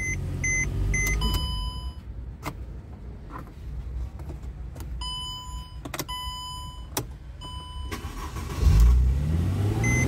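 Mercedes C300's V6 engine running with a dashboard warning beep repeating about twice a second, then shut off about a second in. A few chime tones and switch clicks follow in the quiet. Near the end the engine cranks, fires and revs up as it restarts, now starting since the faulty starter relay was replaced, and the warning beep resumes.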